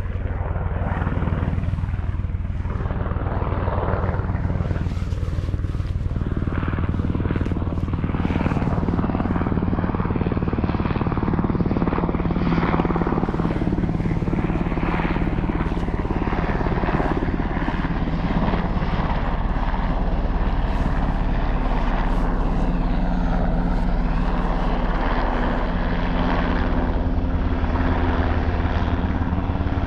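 Helicopter rotor and engine running steadily close by, with a rapid rotor beat, growing a little louder over the first several seconds.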